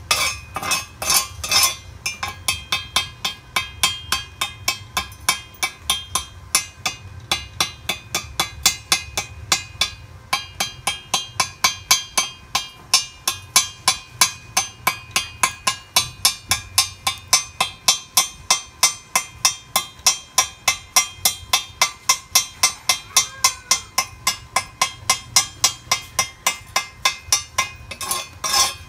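Chipping hammer striking a fresh stick weld on steel in a steady run of metallic clinks, about three a second, knocking the slag off to bare the bead.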